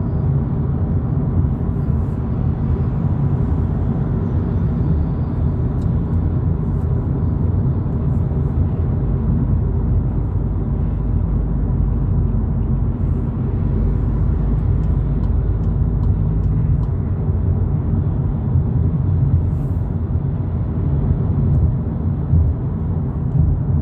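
Volkswagen Polo GTI cruising steadily at about 90 km/h on a freeway: a steady low rumble of road and engine noise.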